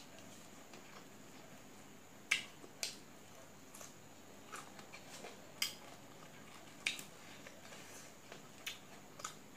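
Close-up eating sounds: irregular short, sharp wet clicks and smacks, about one a second, as rice is mixed by hand on a steel plate and chewed.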